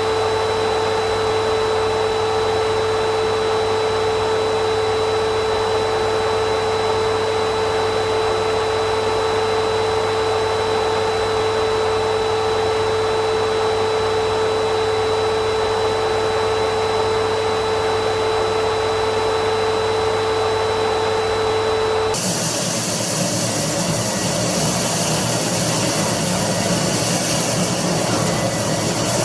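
Canister vacuum cleaner motor running with a steady, high whine. About three-quarters of the way through, the sound switches abruptly to a rougher, hissier rush.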